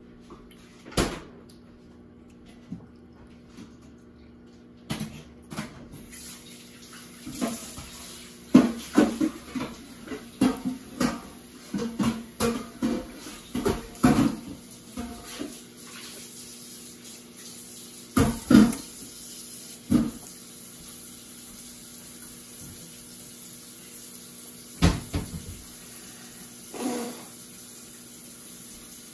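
Water running from a tap with dishes and utensils clattering, the clatter thickest in the first half and a few single knocks later.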